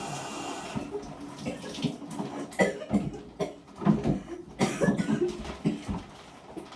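A child's voice making a string of short, irregular weird noises in the shower. Running shower water is heard at first and stops about a second in.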